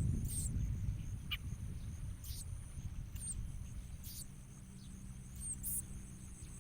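Short, very high bird chirps repeating about once a second, over a steady high-pitched insect drone and a low rumble.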